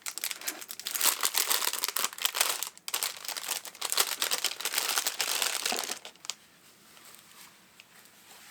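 Packaging crinkling and rustling as a tapestry is unwrapped by hand, dense for about six seconds and then dying down to faint rustles.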